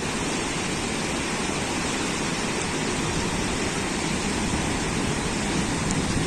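Steady rushing of a river in spate, swollen by heavy rains.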